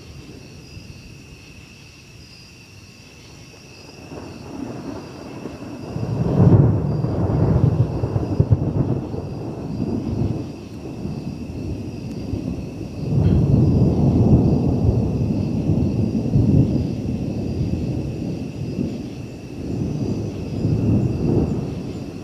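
Thunder rolling: a low rumble that starts faintly about four seconds in, then swells loud in long waves, peaking about six seconds in, again around thirteen seconds and once more near the end.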